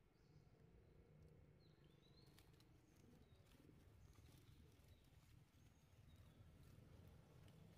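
Near silence with faint, scattered crackles and rustles of dry leaf litter as macaques move across it, and a couple of faint, short, high chirps about two seconds in.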